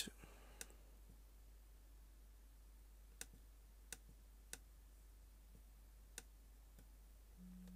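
Near silence: room tone with five faint, sharp clicks spread through, and a brief low hum just before the end.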